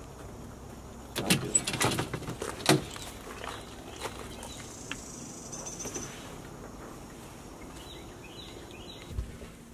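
Knocks and rattles of a large plywood sheet being handled and carried, bunched in the first few seconds with the loudest knock about two and a half seconds in, then lighter handling noise. Birds chirp faintly near the end.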